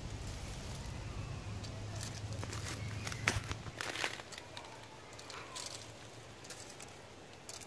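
Handling noise: scattered light clicks and crackles, most of them between about two and a half and four seconds in. A low steady rumble runs under the first three seconds or so.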